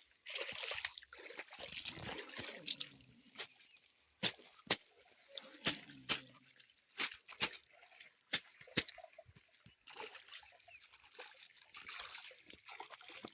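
River water sloshing and splashing as laundry is hand-washed in it, with a run of short sharp splashes and drips in the middle.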